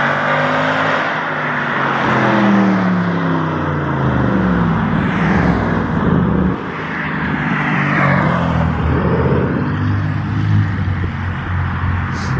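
Dodge Charger Scat Pack's 392 (6.4 L) Hemi V8 with Stainless Works mid pipes and a mid-muffler delete, loud, accelerating hard with its note climbing and dropping through gear shifts. It then settles to a lower running note as the car comes back in.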